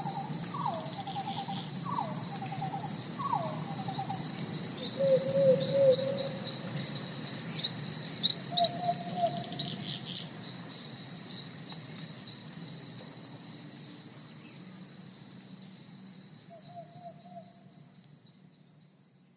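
Night-time nature ambience: crickets chirring steadily and high, with a few lower chirping calls, the first several dropping in pitch. It fades out gradually over the last several seconds.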